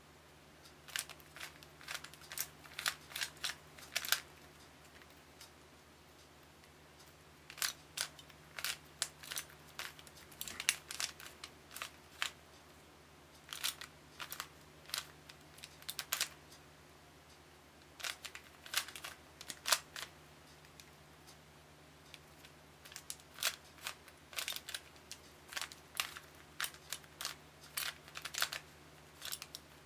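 Rubik's Cube layers being turned by hand: rapid runs of plastic clicking and clacking as the faces snap round, in bursts of a few seconds with short pauses between them.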